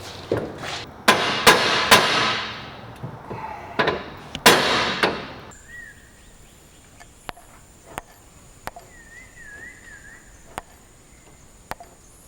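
Hammer blows on a steel motorcycle frame: several ringing strikes, the loudest about four and a half seconds in. Then it turns much quieter, with only a few light ticks.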